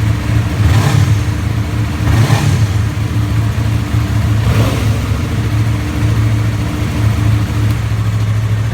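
Yamaha R3's 321cc inline-twin engine idling after a cold start, steady, with a few brief swells in level.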